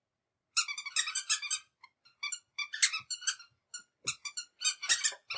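Toddler's squeaker shoes squeaking with her steps: bunches of quick, high chirps, several a second, in short runs with brief gaps between.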